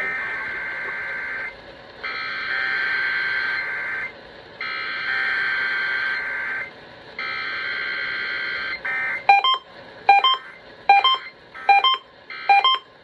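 Emergency Alert System SAME header bursts: several roughly two-second bursts of harsh, buzzy digital data tone with short gaps between them. They are followed, from about nine seconds in, by a string of short, sharp beeps repeating about every half second.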